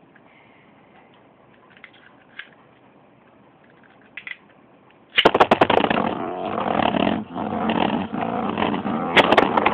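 Beyblade spinning tops launched into a plastic stadium about five seconds in, then spinning and clattering against each other and the stadium walls with a dense run of rapid clicks and scraping. Before the launch there are only a few faint clicks.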